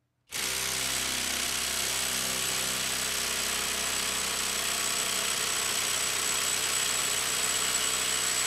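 Skil 12-volt brushless impact driver (ID6744A-00) on a 4 Ah battery, hammering steadily under heavy load against a hydraulic test rig, with a steady high whine. It starts about a third of a second in.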